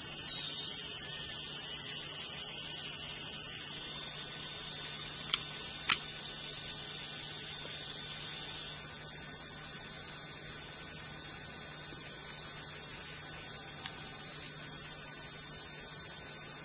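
Steady, high-pitched drone of insects in the forest, with two faint clicks about five and six seconds in.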